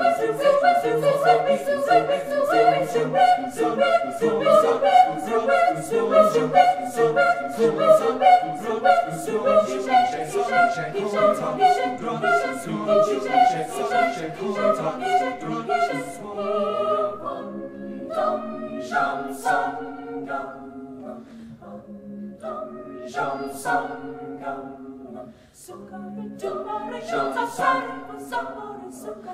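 School choir singing: quick, rhythmic, densely articulated phrases that thin out about halfway into sparser, spaced chords over a sustained low note.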